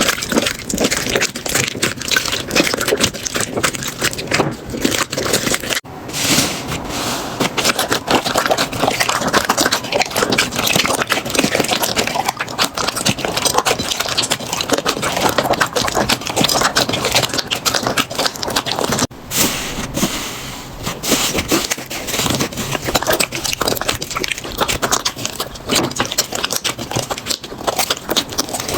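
Slime being squeezed, poked and stretched by hand, giving a dense run of crackling and popping clicks, broken by two short cuts about 6 and 19 seconds in.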